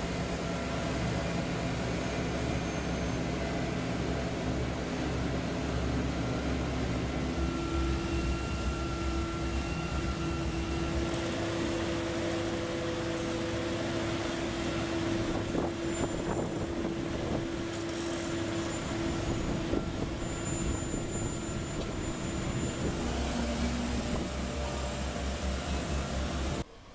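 Engines of road-building machinery running steadily, with a steady whine that comes in about seven seconds in and fades out later; the sound cuts off abruptly just before the end.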